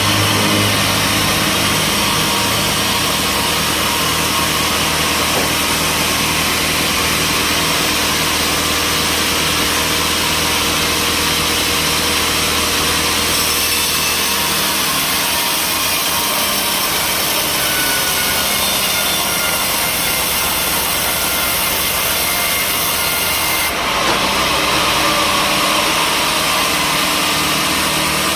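Engine-driven sawmill saw cutting through timber, running steadily and loudly. The higher cutting sound strengthens about halfway through and falls back near the end.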